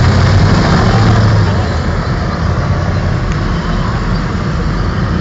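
Tracked armoured vehicles driving past: engines and tracks make a loud, low rumble that is strongest for the first second and a half as one passes close, then eases a little as the column moves on.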